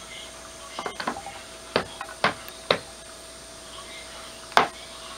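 A few sharp knocks and clinks of hard objects, irregularly spaced: a small cluster about a second in, three more about half a second apart around two seconds, and the loudest near the end, over a faint steady hum.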